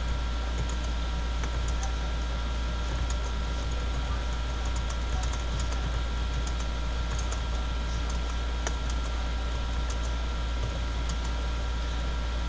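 Typing on a computer keyboard: quick, irregular key clicks, with a strong steady low hum and hiss underneath.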